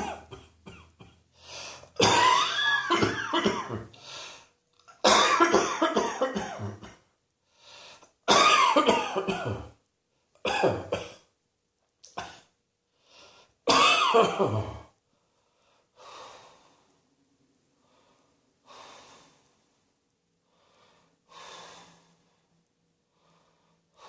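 A person coughing hard in repeated fits, each a quick run of several coughs, over about the first fifteen seconds, then settling into fainter breaths.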